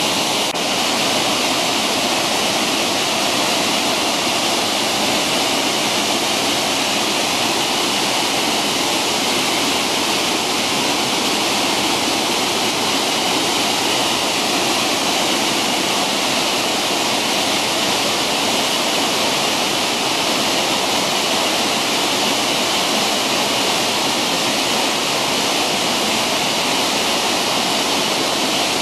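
Waterfall pouring into a rock plunge pool: a steady, unbroken rush of falling water.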